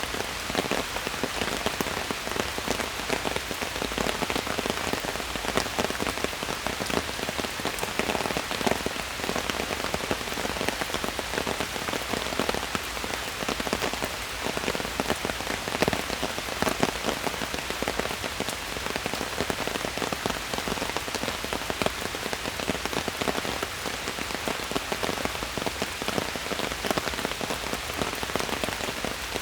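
Steady rain falling in a forest, a dense patter of many drops.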